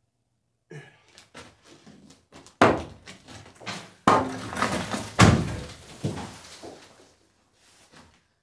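Heavy blows from a long-handled pick or sledgehammer breaking up stone and rubble, with debris rattling in between. It starts about a second in, and three strikes are much louder than the rest, spaced a little over a second apart.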